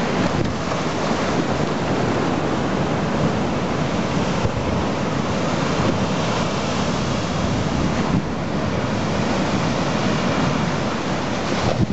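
Storm waves breaking and crashing against the sea front: a continuous, loud rush of churning surf and spray.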